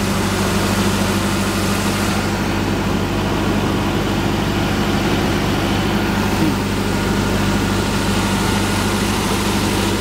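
Toyota motorhome's engine idling steadily, a low, even hum.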